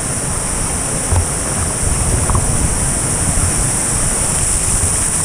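Artificial pool waterfall pouring into the pool close to the camera: a steady rush and splash of falling water, with a low rumble and a few dull knocks of water against the camera.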